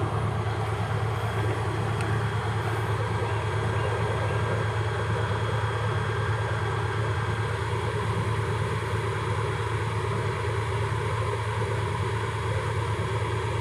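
Mitsubishi Fuso 6M70 inline-six diesel engine running steadily, a constant low drone with no change in speed.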